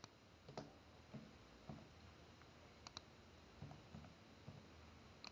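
Near silence: room tone with faint, irregular clicks from a computer keyboard and mouse.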